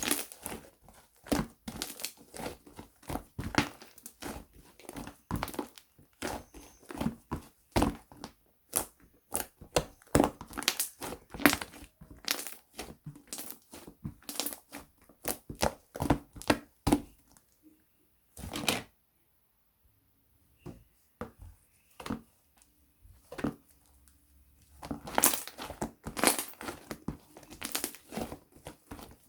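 Thick, chewy milkshake slime being squeezed, stretched and poked by hand, giving rapid sticky pops and crackles. About two-thirds of the way through there is a quieter stretch with only a few scattered clicks.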